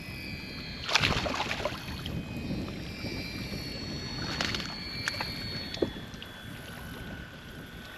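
Water splashing around a kayak, with two short, louder splashes, about a second in and again about four and a half seconds in.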